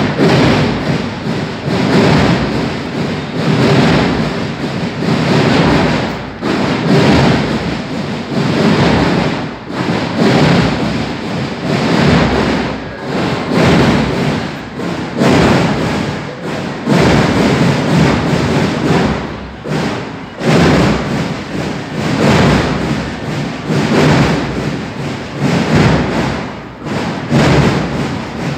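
Drums of a banda de guerra, a marching drum and bugle band, beating a rhythmic marching cadence, with many drums struck together.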